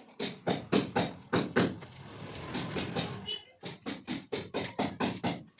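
Rapid hammer strikes, about three to four a second, broken in the middle by a second or so of rougher, scraping noise.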